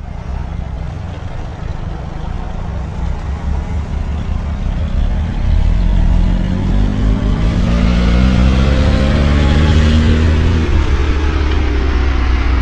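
Several motorcycle engines running and getting louder as the bikes ride up, with the engine pitch falling in sweeps in the second half. The sound starts abruptly.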